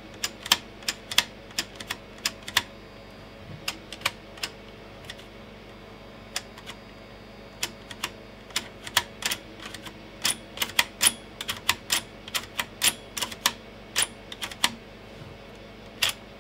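Irregular sharp clicks and snaps from the disk-loading and eject mechanism of a Sony MP-F52W-30 3.5-inch floppy drive being worked by hand, scattered singly and in quick clusters. The mechanism is sticking: something in it is stuck.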